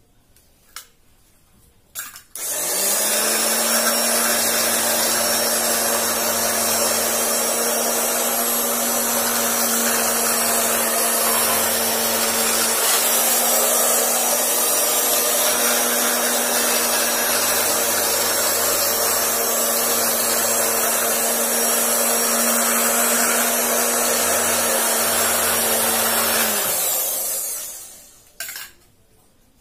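Octa Takayama electric fabric cutting machine running as it cuts through a stack of fabric layers: a steady motor hum that starts a couple of seconds in and winds down near the end.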